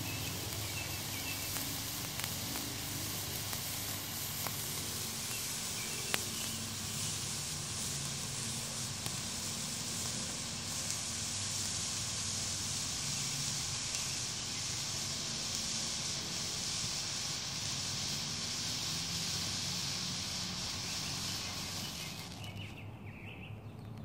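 Vintage Standard Fireworks Silver Spray fountain burning with a steady hiss as it throws out sparks, with a few small pops in the first few seconds. The hiss dies away near the end as the fountain burns out.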